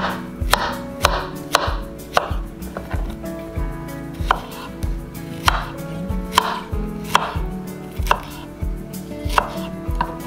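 Kitchen knife dicing soft peeled peaches on a wooden cutting board: the blade taps the board in an uneven series of sharp knocks, about two a second.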